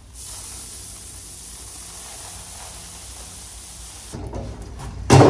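Mixed chicken feed (sunflower seed, oats, corn chops, roasted soybeans and flaxseed) pouring in a steady hissing stream from a tipped cement mixer drum into a plastic bin. The pour stops about four seconds in, and a loud thump follows near the end.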